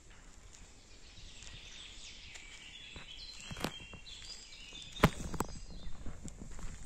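Footsteps along a forest path while small birds chirp in short high notes, with two sharp cracks underfoot, the louder one about five seconds in.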